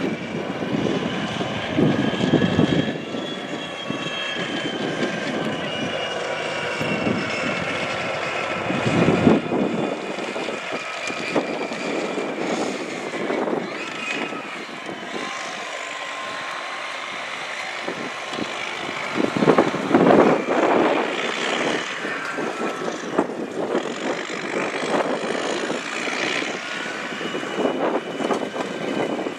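Aircraft engine running with a high whine that falls slowly in pitch, with louder noisy surges here and there.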